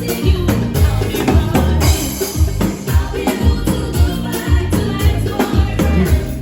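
Live band playing a song with a steady drum beat of about two kick hits a second, bass, and percussion, with some singing.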